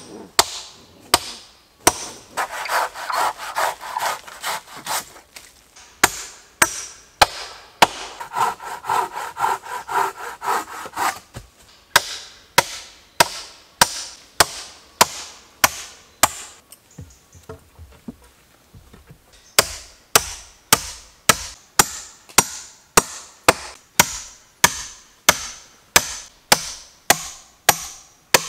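Hammer blows on wooden floor beams, a steady run of sharp knocks about one and a half to two a second. Two spells of a few seconds each of a rasping, sawing-like sound come between the blows in the first half.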